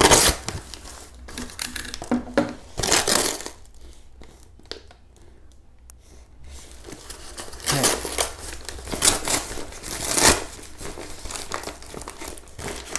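Brown kraft-paper mailer being slit with a box cutter and torn open by hand, the paper crinkling and crumpling in several loud bursts with a lull of a few seconds in between.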